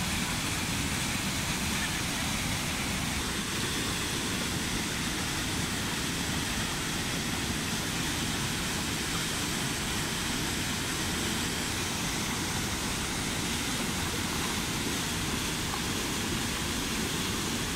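Steady rush of whitewater from a cascade pouring into a fast, shallow river: an even, unbroken noise at a constant level.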